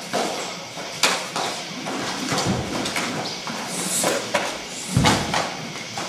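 Two karateka performing a kama kata: thumps of their footwork on the floor and sharp swishes and snaps of their movements, irregular, with the heaviest thump about five seconds in.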